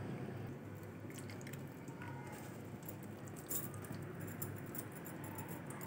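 Faint wet squishing, with small scattered clicks, of raw fish pieces rubbed by hand with salt in a steel bowl.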